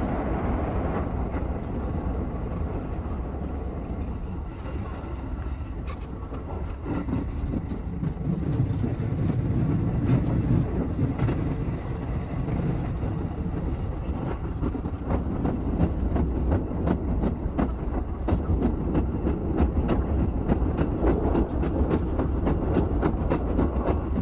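221 series electric train running on the track, heard from inside the driver's cab: a steady low rumble of wheels and running gear with many quick clicks from the wheels over the rails. The rumble grows somewhat louder about a third of the way in.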